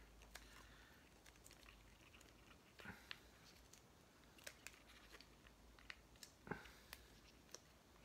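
Faint scattered crinkles and clicks of a plastic MRE peanut butter packet being torn open and handled, with slightly louder ticks about 3 and 6.5 seconds in.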